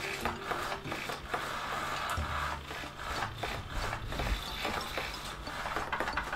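Close rubbing and scraping noises with many short clicks and a few low thumps.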